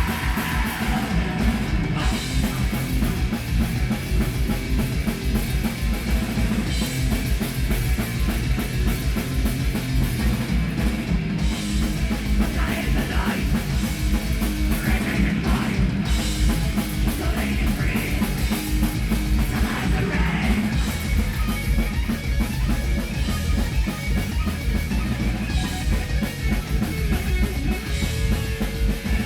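Heavy metal band playing live at full volume: drum kit with a fast, unbroken kick drum under distorted guitars.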